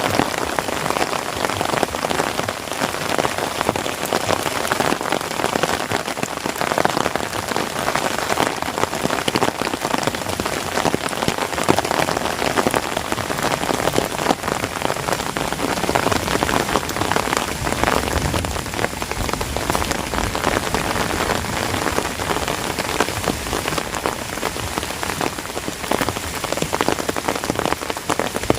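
Heavy rain falling steadily, a dense even hiss of many drops striking surfaces.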